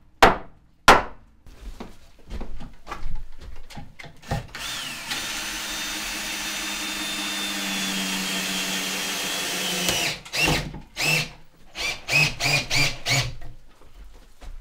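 Cordless drill driving into a wooden window frame in a log wall. It winds up and runs steadily for about five seconds, stops suddenly, then gives about six short trigger bursts. Two sharp knocks of wood come just before it.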